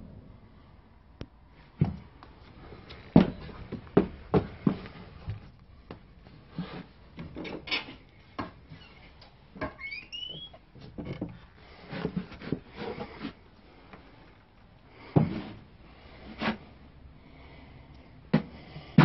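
Scattered, irregular knocks and thumps of someone moving about a wooden-floored room, with a short rising squeak about ten seconds in.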